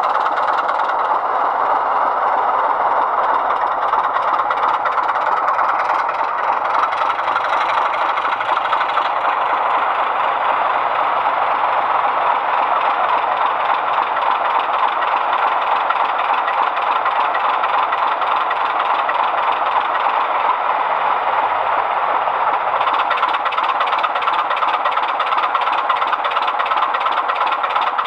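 Heljan class 25 model locomotive's DCC sound decoder playing loud, steady class 25 diesel engine sound through the model's small onboard speaker, with more hiss added about 23 seconds in.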